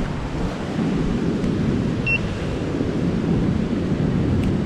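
Wind rumbling on the microphone over the steady wash of surf. A single short, high beep sounds about two seconds in.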